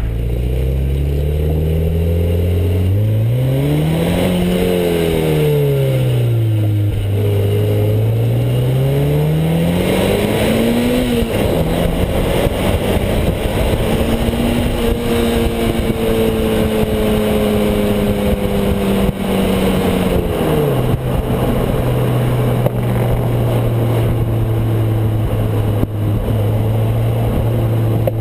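Exhaust of a Mazda MX-5 2.0 with its four-cylinder engine, heard at the tailpipe while driving. The revs climb and fall twice, hold steady for several seconds, then drop about 20 seconds in to a lower steady drone, with road and wind noise underneath.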